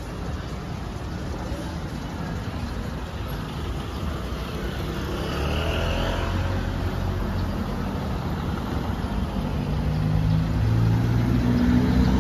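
Road traffic passing on a street. Over the last few seconds a vehicle engine grows louder as it approaches.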